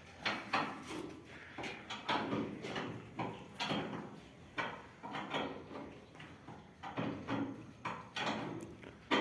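Irregular series of knocks and bangs, roughly two a second, from hands-on work on combine harvester parts.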